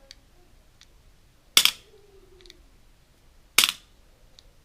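Sharp snaps and clicks from a standard AirMaks Katran air rifle magazine being handled and loaded: two loud snaps about two seconds apart, with a few faint ticks in between.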